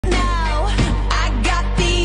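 Background music: a pop song with a singing voice over a steady, heavy bass.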